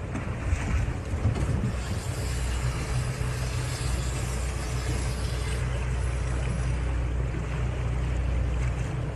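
A boat's motor running steadily under wind noise on the microphone.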